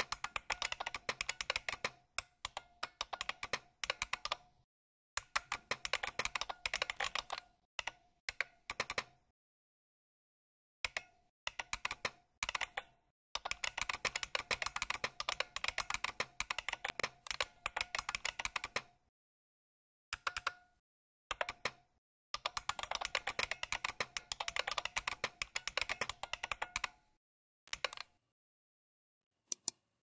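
Emulated keyboard sounds: bucklespring software plays recorded IBM Model M buckling-spring key clicks for each key pressed, in quick runs of typing broken by short pauses.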